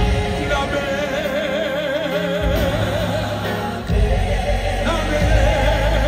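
Live gospel music: a singer holds long notes with a wide, wavering vibrato over the band's bass, with the choir behind.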